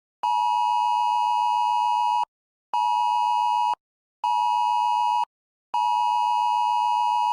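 Emergency alert broadcast tone: steady electronic beeps near 1 kHz with a higher tone above. A long beep of about two seconds, two shorter one-second beeps, then another long beep.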